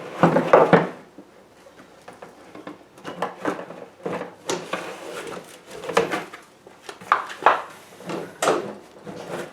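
A rear bagger's mower-deck collection chute being knocked and wiggled into place on the mower, in irregular clattering knocks, loudest in the first second.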